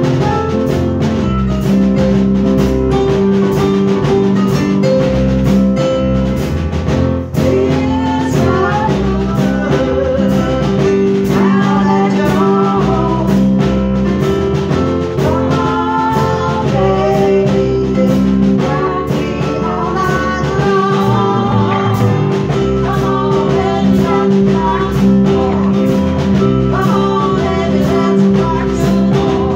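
A small band of two electronic keyboards and a drum kit playing a song together at a steady tempo. A singing voice carries the melody from about eight seconds in.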